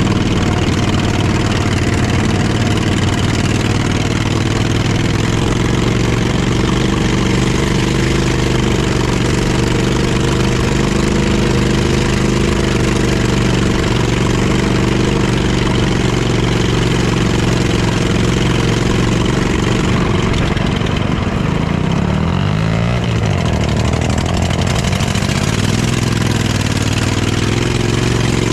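Small off-road vehicle engine running steadily under way. Its revs dip and climb again about three-quarters of the way through, then hold steady.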